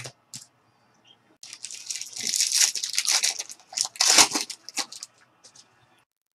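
A trading card pack wrapper being torn open and crinkled by hand, a dense crackling rustle that builds about a second and a half in and fades out near the end.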